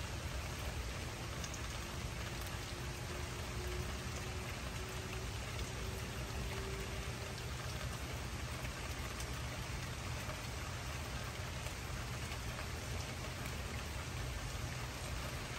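Steady rain falling, with a low rumble underneath and scattered sharper drop ticks; a faint hum is heard from about one to seven seconds in.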